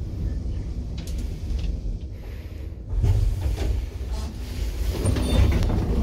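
Traction elevator in operation: a steady low rumble of the car and machinery, with scattered clicks and knocks. It gets louder about halfway through.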